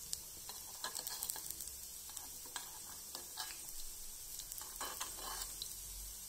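Corn pakoda batter shallow-frying in a little oil in the cups of a paniyaram pan: a steady sizzle with scattered crackles and pops.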